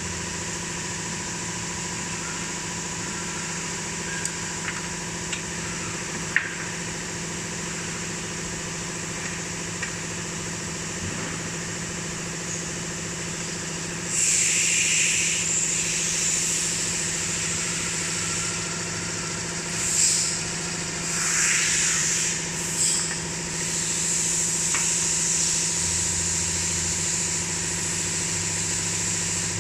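Steady machine hum. About halfway in, bursts of loud hissing come and go over it.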